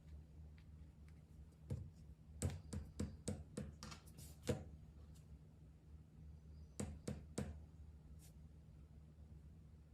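Faint, scattered clicks and taps from fidget toys being handled, in a cluster about two seconds in and another just after the middle, over a low steady hum.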